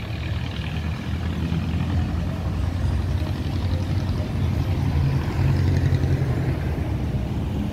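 Steady low rumble of city street traffic, vehicle engines running past, swelling slightly a couple of times as vehicles go by.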